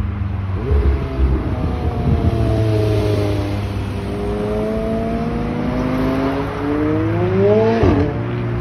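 Sports car engine revving hard and accelerating past, its pitch sagging and then climbing steeply to a peak near the end before dropping sharply at a gear change. A few sharp pops about a second in.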